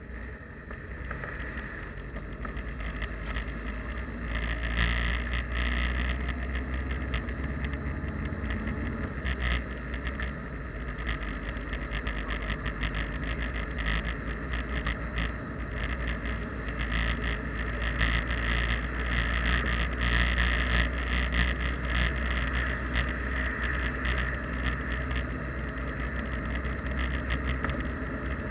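A car driving, heard inside its cabin: a steady low rumble of engine and tyre noise. It grows louder over the first few seconds as the car picks up speed.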